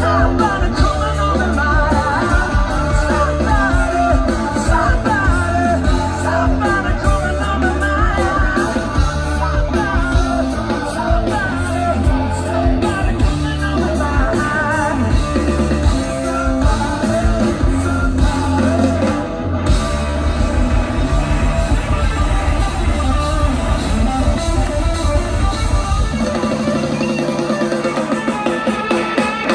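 A live rock band playing loud: a male lead singer sings over electric guitar, bass and drum kit. About 26 seconds in, the bass and drums drop out and leave the guitar.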